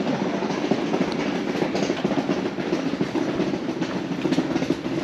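Wheels rolling over brick paving: a steady, rattling rumble full of quick ticks.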